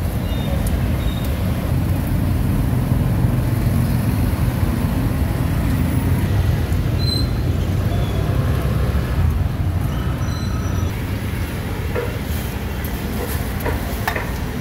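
Steady low rumble of road traffic, with a few short clicks near the end.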